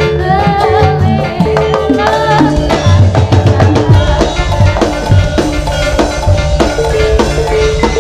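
Javanese jaranan sentherewe dance music played live: drums beat densely under a held pitched tone, with a wavering, sliding melody line over the first two or three seconds.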